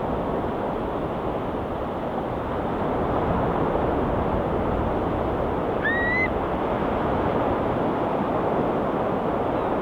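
Ocean waves washing steadily onto a rocky shore, a constant even rush of surf. About six seconds in, a seabird gives one short call that rises and then levels off.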